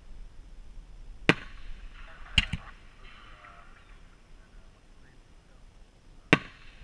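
Fireworks going off: a sharp bang about a second in, a quick double bang a second later, and another bang near the end.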